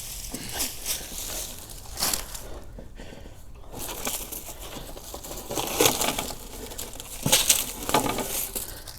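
Dry, freeze-killed garden plants being crunched and rustled by hand as they are cut back and pulled out, in irregular crackling bursts with several louder crunches about six, seven and eight seconds in.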